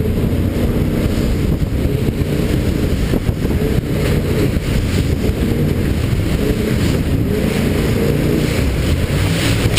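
River boat's engine running hard at speed, with rushing water, spray against the hull and wind noise on a camera mounted outside the cabin.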